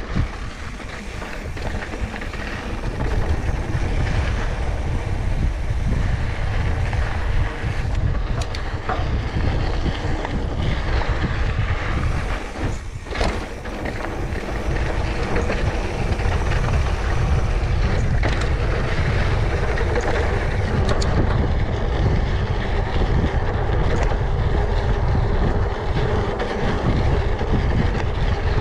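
Wind rumbling steadily on a helmet- or bike-mounted GoPro's microphone during a mountain bike ride, mixed with the rush of tyres and bike on the trail and a few brief knocks.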